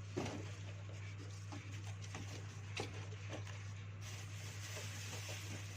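Light scattered clicks and scratching of small parts being handled during a circuit-board repair, over a steady low electrical hum. A faint high hiss comes in about four seconds in.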